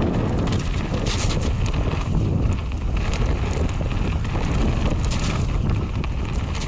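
Wind buffeting the microphone over the rumble of mountain bike tyres rolling fast on a gravel trail, with irregular small clatters from the bike over the stones.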